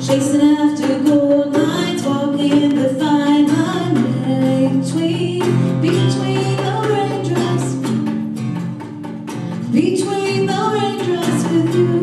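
A woman singing a slow melody with acoustic guitar and djembe hand drum accompanying her.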